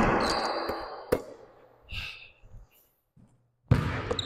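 A basketball bouncing and thudding during a game, some hits followed by a brief high ring. There is a short dead gap a little before three seconds in, then another sharp thud.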